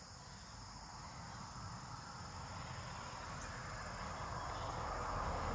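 Crickets or similar insects trilling steadily in high thin tones, under a rushing noise that grows steadily louder.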